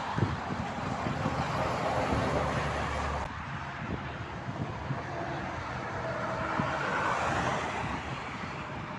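Motorway traffic passing at speed: steady tyre and engine noise from vehicles going by. The sound changes abruptly about three seconds in.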